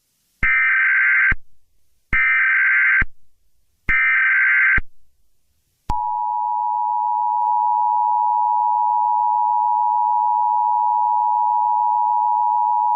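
Emergency Alert System header: three short bursts of SAME data tones, each under a second, then about six seconds in the steady two-tone EAS attention signal starts.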